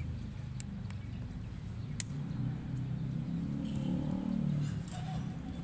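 A futsal ball kicked sharply on the turf pitch twice, the louder kick about two seconds in, over a low steady rumble.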